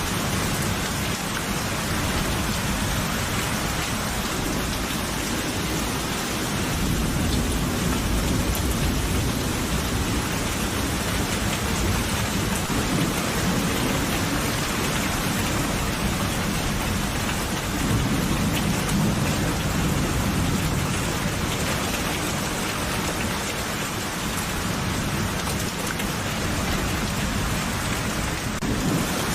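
Steady heavy rain with low rolling thunder that swells twice, about a quarter of the way in and again just past the middle.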